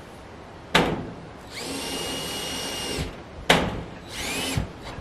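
Power drill driving screws into metal roof trim: a steady whine for about a second and a half, then a shorter run near the end. Each run follows a sharp knock on the sheet metal.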